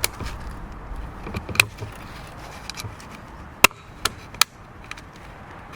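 A few sharp, irregularly spaced knocks and clicks of metal on metal from work on stainless steel snap fasteners. Three of them come close together about three and a half seconds in.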